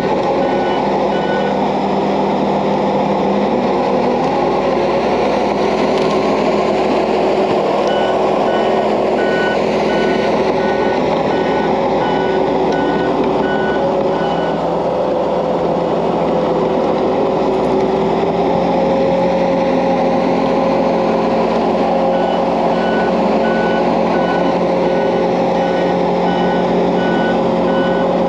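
Case Minotaur DL550 compact dozer loader working steadily under load, its diesel engine running, with its reversing alarm beeping in spells as it backs up: at the start, for several seconds in the middle, and again near the end.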